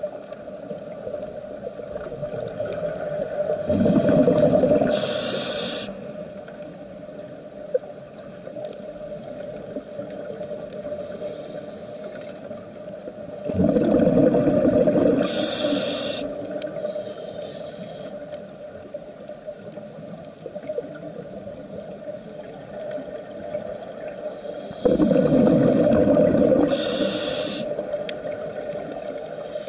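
Scuba diver breathing through a regulator underwater: three long exhalations of gurgling, bubbling air, about eleven seconds apart, with fainter hissing inhalations between.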